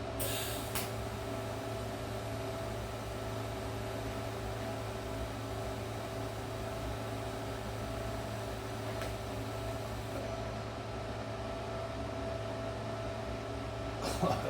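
Steady machine hum with a few held tones and a light hiss, running at an even level. A brief hiss comes right at the start.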